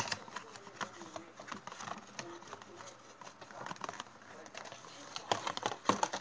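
Handling of a kendama and its packaging: scattered light clicks, taps and rustles at an irregular pace, with a few sharper clicks near the end.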